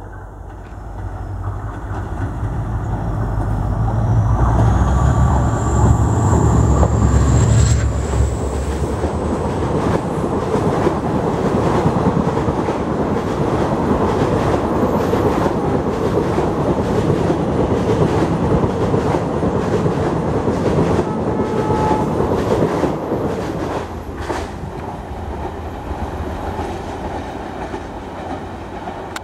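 A diesel-hauled express passenger train passing directly below. The locomotive's engine rumble builds and peaks as it goes under, with a high whine rising in pitch. Then comes the steady clickety-clack of the coaches' wheels over the rail joints, easing off near the end as the last coach draws away.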